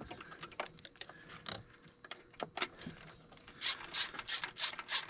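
Hand socket ratchet clicking as an adapter bolt is turned into its thread. Scattered lighter clicks come first, then a quicker run of about five clicks a second in the second half.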